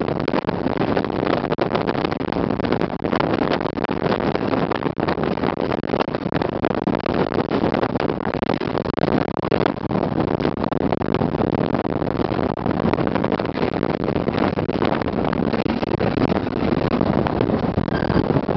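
Toyota race pickup's 1GR-FE V6 engine running hard and loud as the truck is driven fast over desert sand, the sound rising and falling unevenly.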